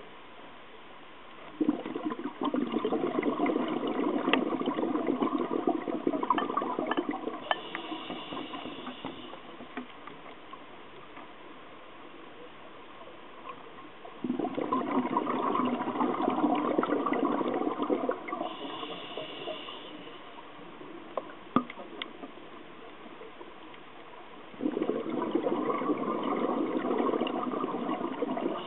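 Scuba diver breathing out through a regulator underwater: a gush of exhaust bubbles three times, each lasting several seconds, about ten seconds apart, with a short faint high hiss after the first two.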